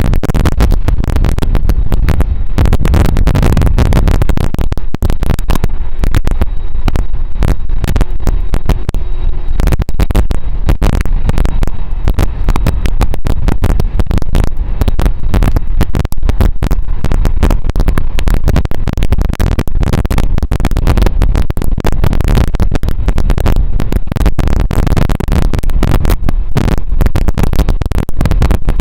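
Heavy wind buffeting on an outdoor microphone: a loud, constant low rumble full of irregular crackling.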